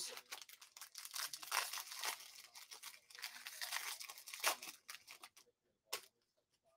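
Foil wrapper of a Panini Mosaic football card pack being torn open and crinkled: a dense run of crackles lasting about five seconds, then a single click near the end.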